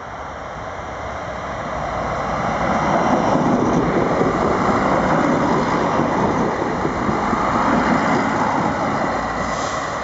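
Two Stadler Regio-Shuttle RS1 diesel railcars coupled together passing close by: engine and wheel-on-rail noise build up from about two seconds in and stay loud as the train goes past.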